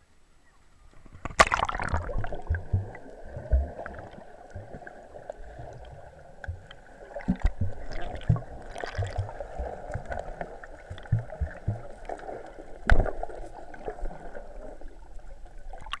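Splash as a camera plunges into a river about a second in, then muffled underwater sound of water and bubbles, with irregular low thumps and a sharp knock late on, until it breaks the surface again at the end.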